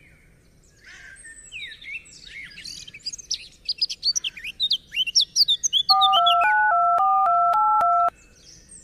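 Small birds chirping, then, about six seconds in, a mobile phone keypad sounds a quick run of about ten dual-tone (DTMF) beeps as a number is dialed, lasting about two seconds.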